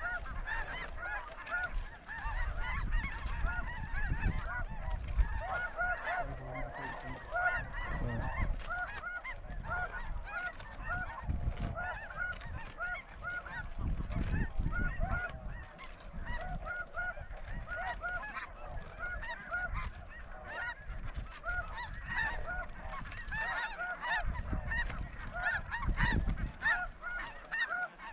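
A large flock of snow geese calling overhead: a dense, unbroken chorus of many short, overlapping honks, with gusts of wind rumbling on the microphone now and then.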